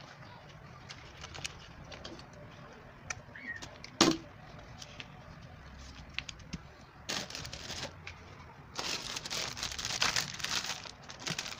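Sheets of construction paper being handled, rustling and sliding, with a sharp knock about four seconds in and louder bursts of paper rustling in the second half.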